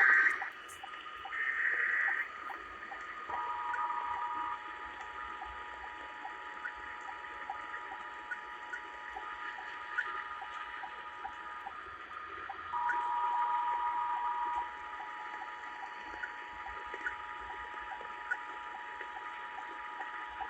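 Emergency Alert System test received over the radio: two short bursts of the screeching SAME header data, then the steady two-tone EAS attention signal for about eight seconds. It breaks off for about a second and sounds again for about eight more, over a hiss with scattered clicks of radio static.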